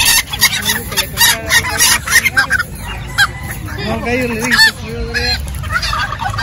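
Chickens and other fowl calling together: many short, sharp calls in the first half, then a few longer pitched calls about four seconds in.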